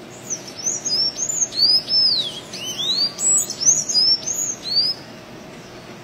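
Sanhaço-azul tanager singing: a quick run of high, arched whistled notes, one after another, that stops about five seconds in.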